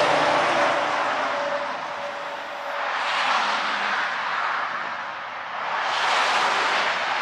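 Traffic passing on a wet, slushy road: tyre hiss swells and fades three times, each pass about three seconds apart.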